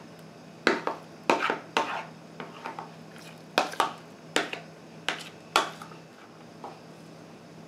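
A metal spoon scraping and tapping against a plastic container while thick custard cream is scooped out into a plastic bowl: about eight short sharp scrapes in the first six seconds.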